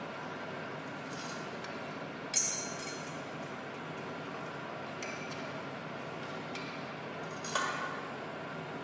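A metal thurible and its chains clinking as incense is spooned onto the coals: two sharp metallic clinks with a short ring, one about two seconds in and one near the end, with lighter clicks of the spoon and chains between them.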